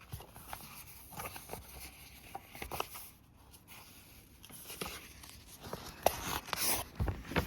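Paper rustling and soft crinkling as a folded poster is unfolded by hand, with scattered small clicks and taps, busier and louder near the end.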